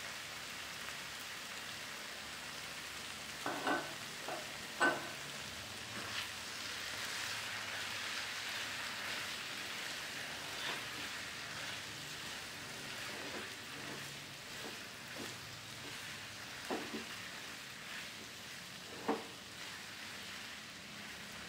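Kwetiau flat rice noodles sizzling in oil as they are stir-fried in a nonstick wok. A spatula scrapes and knocks against the pan now and then, sharpest about five seconds in and near the end.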